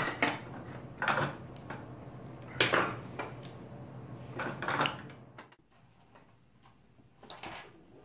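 Clinks and clatter of small hard parts being handled at a keyboard circuit board during switch desoldering: three or four separate knocks and rattles over a low hum. The hum cuts out about five and a half seconds in, leaving near silence with one faint knock near the end.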